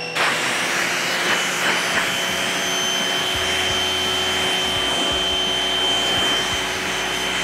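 Giraffe Tools Grandfalls electric pressure washer running steadily with a high motor whine, its water jet spraying from a 40-degree nozzle onto a bicycle frame. The sound starts abruptly at the outset, and a deeper layer joins after about two seconds.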